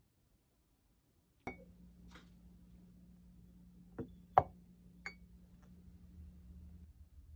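A few scattered knocks and short clinks, the loudest a sharp knock about four and a half seconds in: bottles being handled and set down on a wooden cutting board. A faint steady hum runs underneath.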